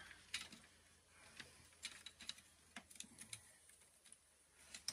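Faint, scattered clicks and light knocks of plastic and metal parts being handled as an old electronic cash register is taken apart.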